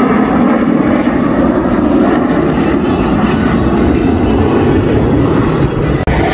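Airplane engine noise from an aircraft flying past, loud and steady, with a pitch that shifts slowly. The sound drops out briefly near the end.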